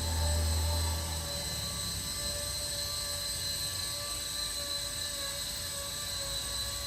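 Small 3D-printed electric RC helicopter running, with a steady high whine from its brushless motor and rotors. A louder low rumble comes in the first second or so.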